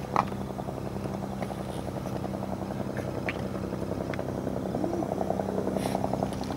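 Outboard motor on a small inflatable boat running steadily under way, with an even, fast-pulsing hum. A short knock comes right at the start.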